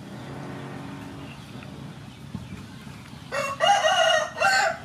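A rooster crowing once near the end: a loud call of about a second and a half in three linked parts. Underneath it runs a low steady hum.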